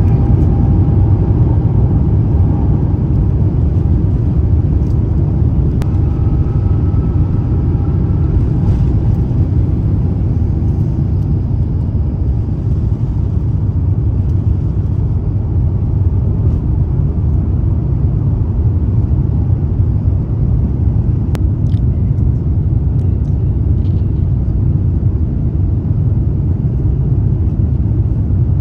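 Airbus A350-900 taking off, heard inside the cabin: the Rolls-Royce Trent XWB engines at takeoff power make a loud, steady rumble that eases slightly over the stretch.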